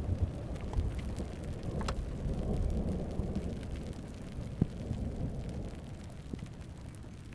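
Thunder rumbling and slowly dying away over steady rain, with a couple of sharp ticks.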